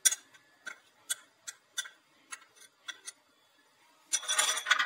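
Steel spoon clicking and tapping against small glass bowls as spice powders are spooned and knocked out, a run of sharp, light clinks about two or three a second. Near the end comes a louder scraping rustle, lasting under a second.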